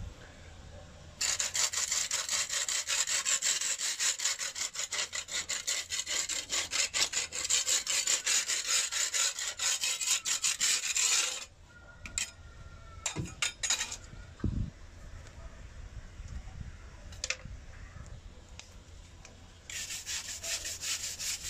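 Long-handled scraper rasping quickly back and forth on a wet concrete wall, scraping off mold. The strokes stop after about ten seconds, a few knocks follow, and the scraping starts again near the end.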